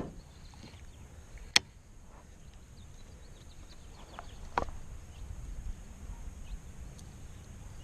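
Quiet outdoor background with a steady low rumble, a few faint short bird chirps, and two sharp clicks, one about one and a half seconds in and one near five seconds.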